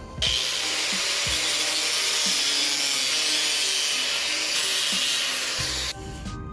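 Angle grinder cutting into the plastic of a vehicle switch panel held in a vise, opening out a switch slot to take an ARB compressor switch. It grinds steadily for about six seconds, starting suddenly and stopping abruptly near the end.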